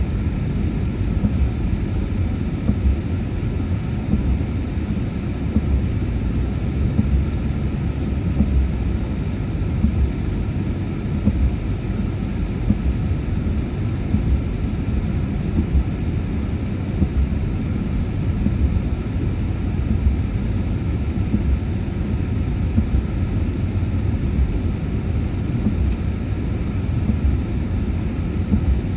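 Steady low rumble inside a car driving on wet pavement: tyre and road noise with the engine underneath, unbroken throughout.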